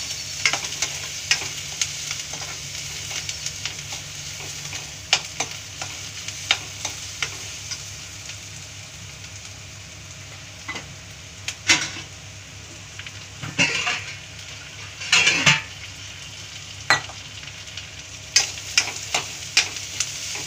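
Chopped garlic and ginger frying with browned onion in a metal kadhai, a steady sizzle, while a metal spoon stirs them, clicking and scraping against the pan. A few louder scrapes come about two-thirds through.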